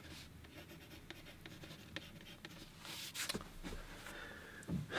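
A pencil writing on watercolour paper: faint, scratchy strokes as letters are formed, with a few stronger strokes about three seconds in.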